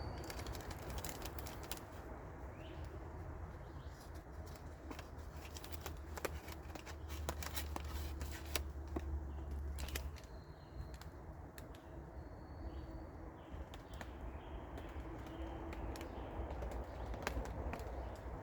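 Irregular light clicks and taps, with a few short bird chirps and a steady low rumble beneath.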